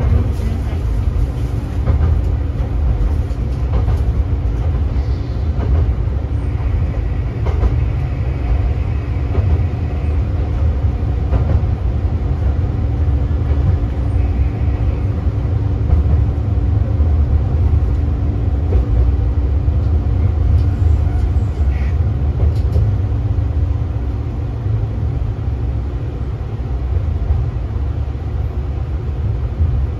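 Diesel railcar KiHa 3710 running, heard from inside the car: a steady low rumble of engine and wheels on rail. A steady hum sits over the rumble and fades out near the end.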